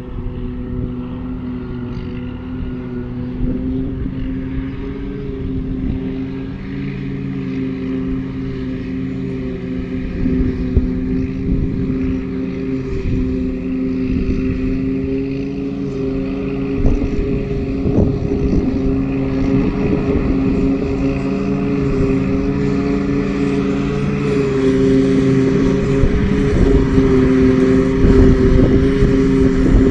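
New Holland self-propelled forage harvester chopping grass silage, with a Case MX135 tractor pulling the trailer alongside. A steady heavy machine drone with a held hum grows gradually louder as the machines come closer.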